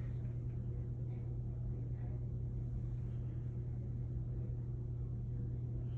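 Steady low room hum with faint background hiss, and a couple of faint soft rustles about one and two seconds in.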